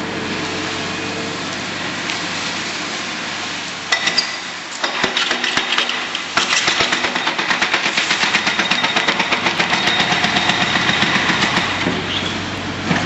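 A machine runs steadily. About four seconds in, a demolition hammer starts striking the concrete of the bridge being torn down, and from about six seconds it settles into rapid, even pounding.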